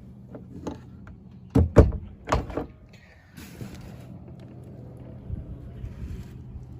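Four loud knocks in quick succession, about one and a half to two and a half seconds in, over a steady low hum, followed by stretches of soft hiss.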